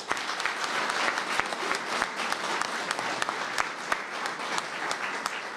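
Audience applauding: dense hand-clapping from a large crowd that eases off slightly near the end.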